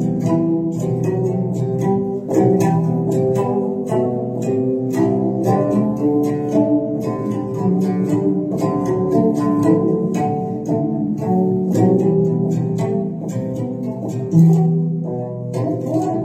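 Instrumental music played on a plucked string instrument, a steady stream of quickly plucked notes.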